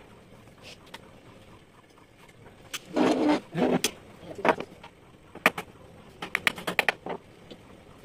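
Wooden pieces and hand tools being handled on a wooden workbench: a loud rattling clatter about three seconds in, then a quick run of sharp clicks and knocks near the end.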